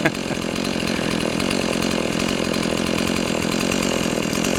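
Chainsaw engine running steadily at high speed.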